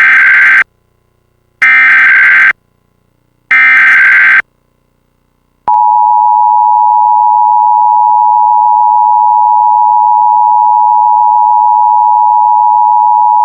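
Emergency Alert System SAME header: three loud bursts of warbling digital data, each about a second long. About six seconds in, the steady two-tone EAS attention signal (853 and 960 Hz) starts and holds for about eight seconds, announcing a Required Monthly Test.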